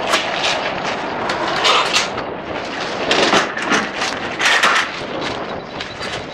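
Irregular knocks, scrapes and rustling from footsteps and a plastic bucket of trout feed being handled and lifted off a wooden flatbed truck bed, over a steady rushing noise.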